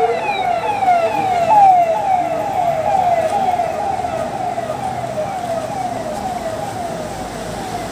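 Siren on a passing motor vehicle, sounding in quick falling sweeps at about two or three a second, fading as the vehicle moves away.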